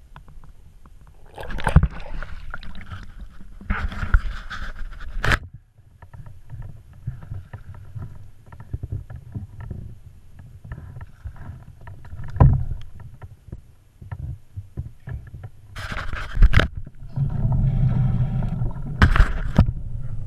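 Water sloshing and splashing around a fishing kayak, with irregular loud thumps and knocks on and near the hull.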